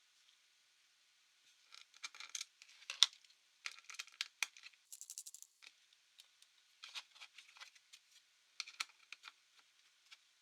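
Small clicks, taps and scrapes of laptop parts and tools being handled, with one sharper click about three seconds in and a brief rasping whir a little after five seconds.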